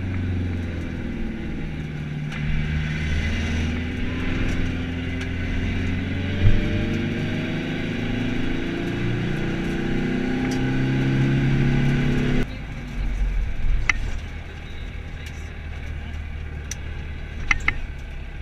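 The turbodiesel engine of a Skoda Fabia TDI rally car, heard from inside the stripped cabin. It pulls hard with its pitch climbing in steps until it cuts away suddenly about twelve seconds in as the throttle is lifted. It then runs more quietly, with a few sharp clicks near the end.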